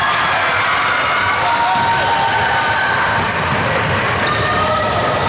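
Basketball being dribbled on a gymnasium's hardwood court during a game, over a steady din of court and spectator noise.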